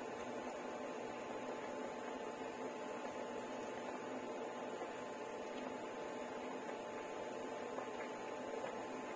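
A steady hum with a faint hiss underneath, unchanging throughout, with no knocks or bubbling pops standing out.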